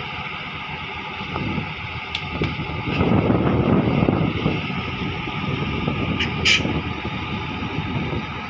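Crawler bulldozer's diesel engine running, revving louder for a second or two about three seconds in. A short sharp high-pitched sound cuts through about six and a half seconds in.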